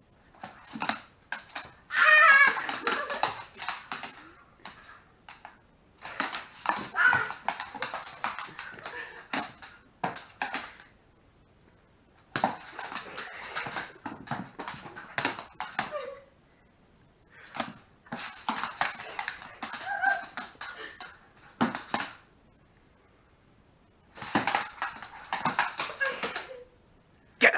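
Claws of a white Siberian husky scrabbling and skittering on a wooden floor as it plays rough with a person, in about six spells of a few seconds each with short pauses between. A few short vocal sounds are mixed in.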